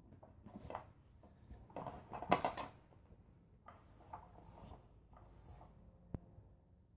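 Nylon fabric cover of an 'Undercover Mouse' cat toy rustling and crinkling in irregular bursts as a cat paws and pounces on it, loudest about two seconds in. A single sharp click near the end.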